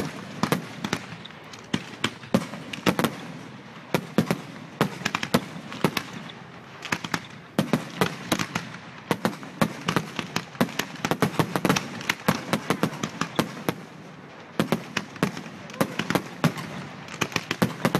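Firework display: a rapid, irregular run of bangs and crackles from shells going off, several a second in clusters, easing briefly about two-thirds of the way through before picking up again.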